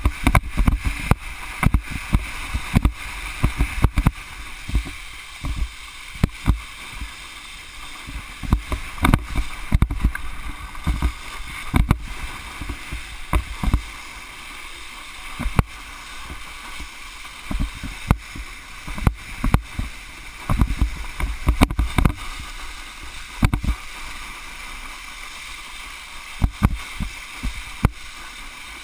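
Wakeboard skimming across lake water while towed: a steady rush and hiss of water, broken throughout by irregular low thumps from wind buffeting the microphone and the board slapping the chop.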